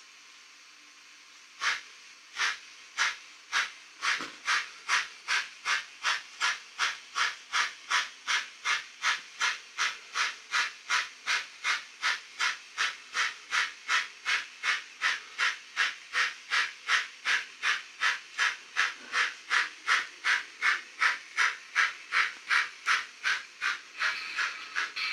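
Steam-locomotive exhaust chuffs from the sound decoder's small speaker in an N-scale Fleischmann BR 94 model, starting slowly and quickening to an even beat of about two to three chuffs a second as the locomotive gets under way. A steadier hiss joins the chuffs near the end.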